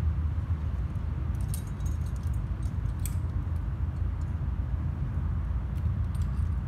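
Metal climbing gear, cams and carabiners racked on a harness, clinking a few times as the climber moves in the crack: about a second and a half in, again at three seconds, and near the end. Under it runs a steady low rumble.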